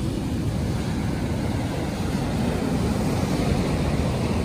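Steady wind buffeting the phone's microphone in a low rumble, over the hiss of surf breaking on the beach.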